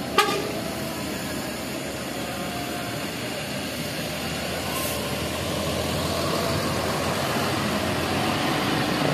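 Mercedes-Benz OH 1526 NG coach's rear-mounted diesel engine running as the bus pulls away and drives past, its rumble growing louder over the last few seconds. A sharp click just after the start and a brief hiss about halfway through.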